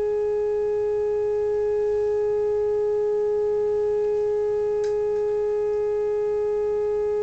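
A steady single-pitch tone with fainter overtones, coming from the Uniden 2020 transceiver's loudspeaker. It is the signal generator's test signal being received while the RF preamp is aligned.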